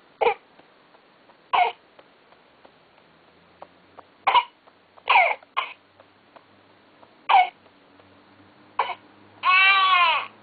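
Electronic infant-simulator doll playing baby coughs: seven short coughs at uneven gaps of about a second, then a brief cry near the end.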